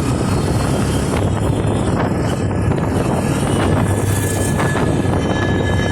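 Steady wind noise and road noise from a motorcycle being ridden, with heavy low rumble on the microphone.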